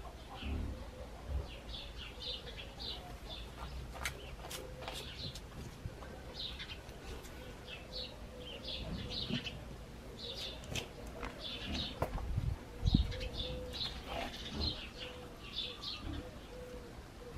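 Small birds chirping in short bursts again and again, with a single low thump about three-quarters of the way through.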